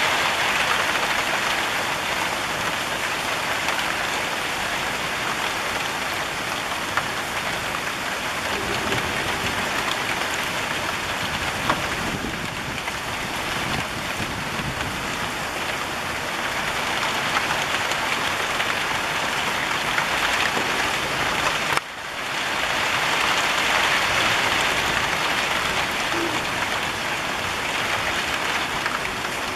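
Steady rain falling on tiled rooftops, an even dense hiss with a short drop in level about three quarters of the way through.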